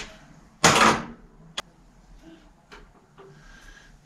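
Hand tools being handled on a workbench: a short metal rattle a little over half a second in, then one sharp click and a few faint ticks.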